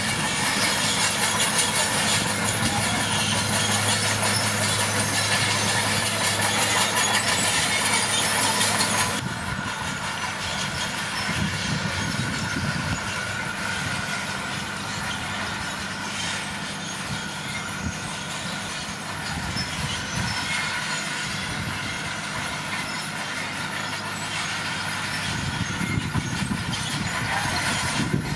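Komatsu D41P crawler bulldozer's diesel engine running steadily, with track and machinery clatter. The sound changes abruptly about a third of the way in, turning quieter and rougher, and changes again near the end.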